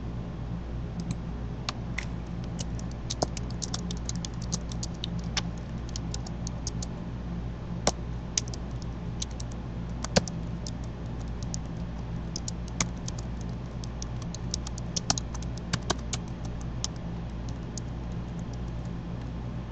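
Computer keyboard and mouse keys clicking in irregular runs of short taps, over a steady low electrical hum.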